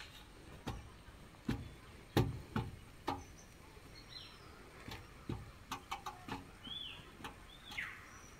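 Irregular light knocks and clicks of terracotta roof tiles being handled and set in place, the loudest about two seconds in. A bird calls with short falling chirps a few times in the second half.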